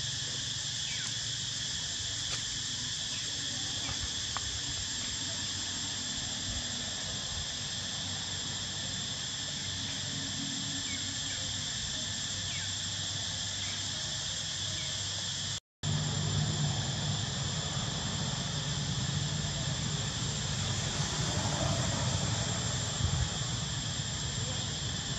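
Steady insect chorus, a high, even drone with a few faint short chirps over it; it cuts out for an instant about two-thirds of the way through.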